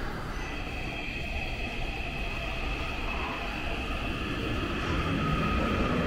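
Tokyo Metro Marunouchi Line train pulling out of an underground platform. Its drive gives a steady whine that starts just after the beginning, a lower tone joins about five seconds in, and the running noise grows louder as it gathers speed.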